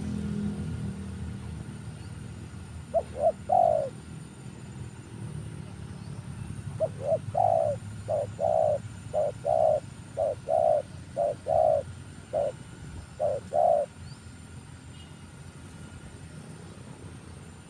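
Spotted dove cooing: a short phrase of three coos about three seconds in, then a longer run of about a dozen coos, over a steady low rumble.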